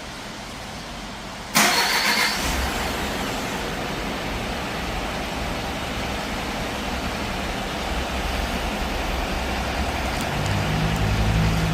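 Hyundai Mighty truck's diesel engine remote-started: a brief start burst about a second and a half in, then the engine idles steadily. A low hum grows slightly louder near the end.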